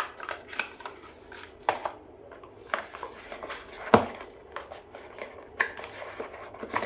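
Phone-box packaging and accessories being handled: irregular light rustles and clicks of paper and plastic, with one sharper knock about four seconds in.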